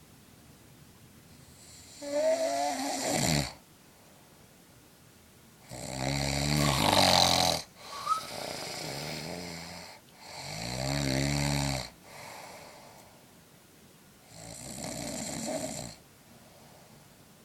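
A man snoring in his sleep: four loud snores about four seconds apart, each lasting a second and a half to two seconds, with quieter breaths out between some of them.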